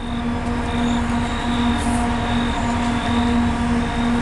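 CRRC Ziyang CDD6A1 diesel-electric freight locomotive approaching with a steady engine drone over a low rumble, getting slightly louder.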